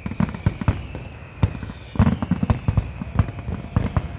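Fireworks exploding: a rapid, irregular run of sharp bangs and cracks, several a second, with a faint steady high tone underneath.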